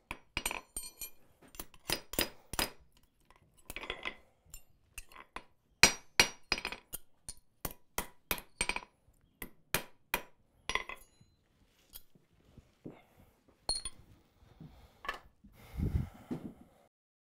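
Hand hammer striking steel on an anvil: a long, irregular run of light metallic blows, each with a short ring, as a small forged iron cabinet pull is worked cold. Near the end comes a duller, low thump.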